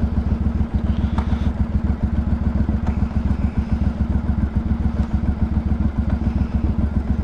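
Motorcycle engine idling loudly with a fast, uneven low pulse from its exhaust.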